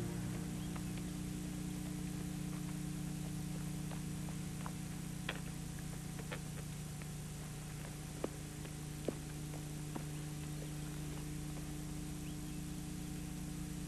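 Steady low hum over a background hiss, with a few faint clicks in the middle of the stretch; no music or speech.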